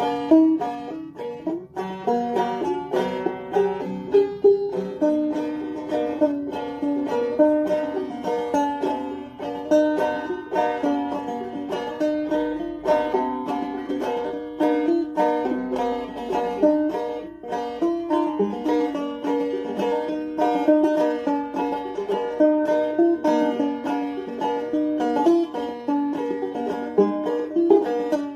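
Banjo being picked in a continuous run of quick plucked notes.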